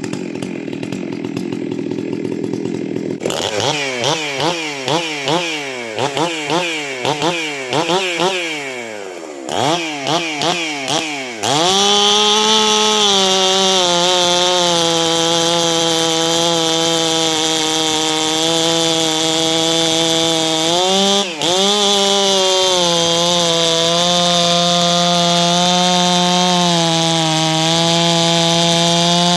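A 91 cc Stihl MS 651 two-stroke chainsaw revved in a series of quick throttle blips, each rising and falling in pitch. It is then held at wide-open throttle with a steady high pitch for most of the rest, dipping briefly about two-thirds of the way through.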